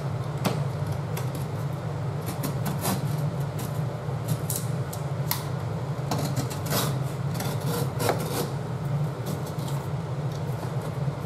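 Utility knife blade scraping and cutting along the raised lip on the edge of a laminate floor plank, in short irregular strokes, over a steady low hum.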